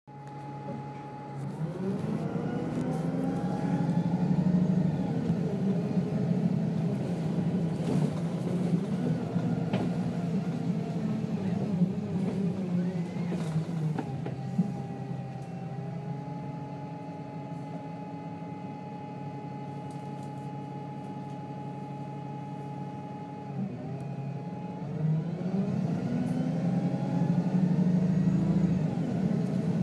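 Alexander Dennis Enviro 300 bus with a Voith automatic gearbox accelerating. The engine note rises, holds steady for several seconds in the middle, then drops sharply about two-thirds of the way through and rises again as it pulls away once more.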